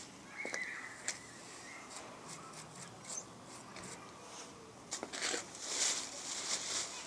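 A thin metal sheet handled on the steel lid of a drum gasifier: scattered clicks, then a few seconds of scraping and rubbing about five seconds in, with wood shavings rustling under it.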